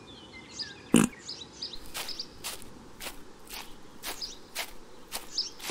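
Footsteps at a steady walking pace, about two a second, with small birds chirping over them. A single thump about a second in is the loudest sound.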